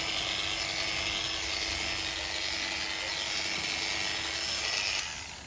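Corded electric livestock clippers running steadily as they shave a cow's hair down close to the skin. The hum stops near the end.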